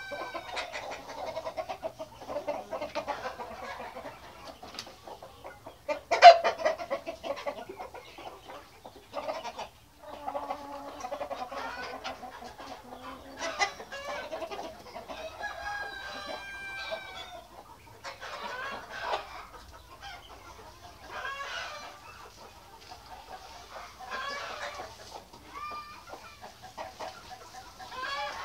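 A flock of white Australorp chickens clucking and calling on and off, with one sudden loud noise about six seconds in.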